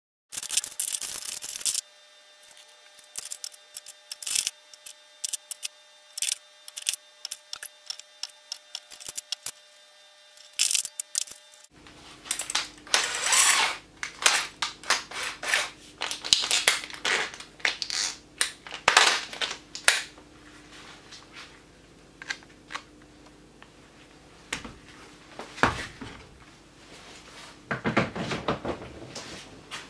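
Handling noise: irregular clicks, taps and rattles as a cordless drill and auger drill bits are picked up, fitted and set down on a wooden workbench, with a loud rustle in the first second or so.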